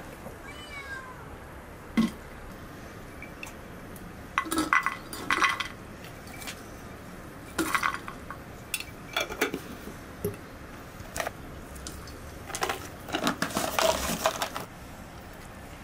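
Glassware being handled: clinks and knocks of a glass teapot and its lid and glass jars set down and moved, in scattered clusters, busiest near the end.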